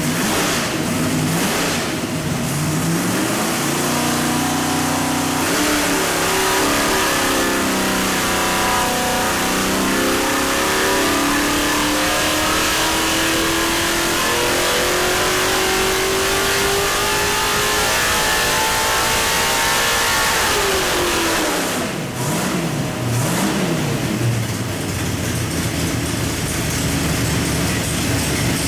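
434 cubic inch small-block Chevy stroker V8 running on an engine dyno. It is blipped a few times, then climbs steadily in revs for about fifteen seconds in a dyno pull. The revs then fall off quickly and it is blipped again.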